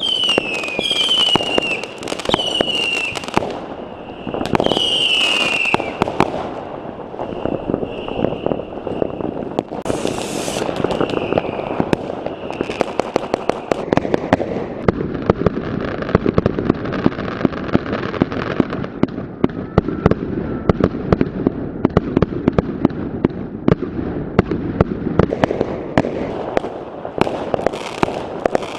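Fireworks and firecrackers going off all around in a dense, continuous string of sharp bangs and crackles. Several whistling fireworks sound in the first six seconds, each whistle sliding slightly down in pitch, and a hiss joins the bangs from about 14 to 19 seconds in.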